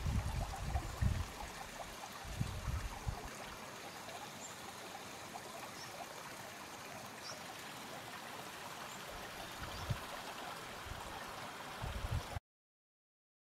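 Small mountain stream running over granite rocks, a steady faint trickle and babble, with a few low thumps near the start and again near the end. The sound cuts out abruptly about a second before the end.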